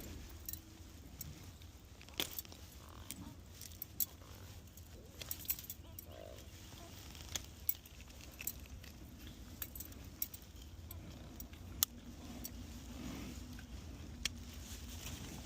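Irregular light metallic clicks and clinks from a metal fish stringer's clips being handled, over a low steady background rumble.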